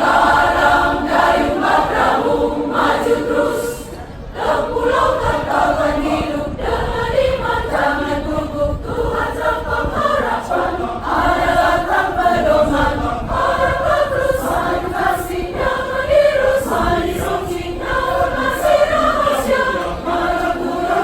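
Church choir singing in several-part harmony, with a brief break between phrases about four seconds in.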